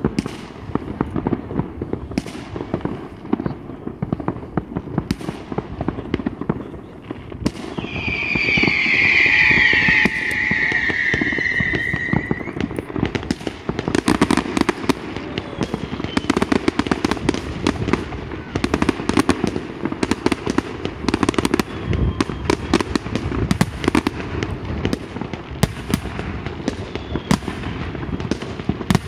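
Fireworks display: a rapid, continuous run of bangs and crackles from shells bursting overhead. About eight seconds in, a loud, high, wavering whistle lasts for several seconds.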